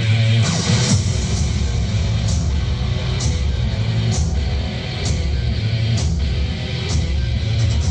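Loud music with a heavy bass line and a sharp beat a little under once a second, played through a large sound-system truck's stacked loudspeaker cabinets.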